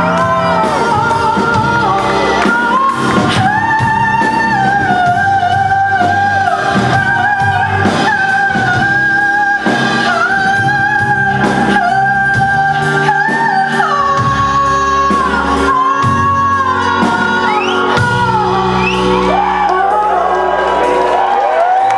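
Female vocalist's wordless, soaring improvised vocal over a live rock band with drums, bass and keyboards. She holds long high notes and slides and steps between them, echoing in a large hall.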